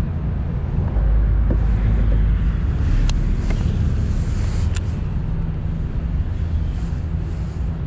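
Wind buffeting the microphone as a steady low rumble, with two light clicks about three and five seconds in.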